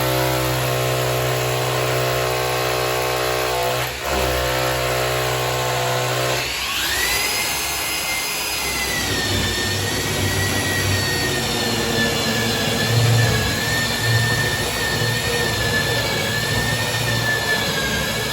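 Electric wall chaser (a grinder-type power tool) running loudly while cutting chases for wiring into a plastered wall. It holds a steady low hum, dips briefly about four seconds in, then about six seconds in shifts to a high, steady whine under load.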